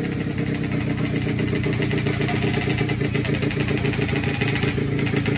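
Race-tuned automatic scooter engine idling steadily with a fast, even beat.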